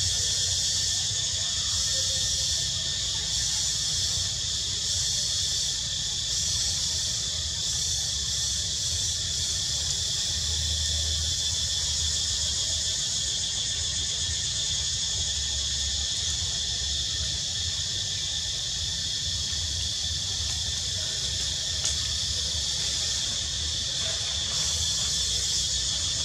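Steady, high-pitched chorus of insects, unbroken, over a low rumble.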